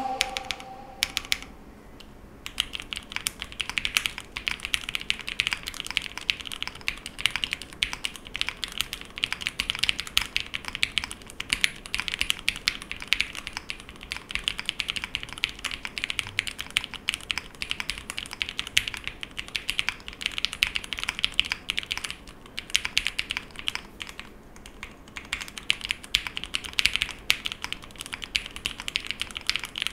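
Typing test on a split 65% mechanical keyboard built with lubed and filmed Cherry MX Black linear switches on an aluminium plate, O-ring mounted and without foam; a steady run of key clacks, described as creamy, with a brief lull about two-thirds of the way through.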